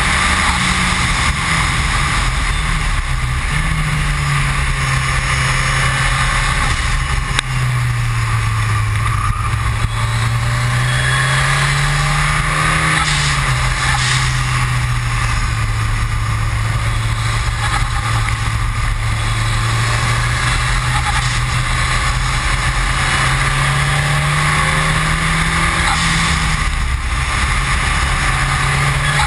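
Ford Escort RS Cosworth's turbocharged four-cylinder engine running hard at speed on track. Its note climbs and drops slowly several times as the car accelerates and eases off, under a loud, steady rushing noise.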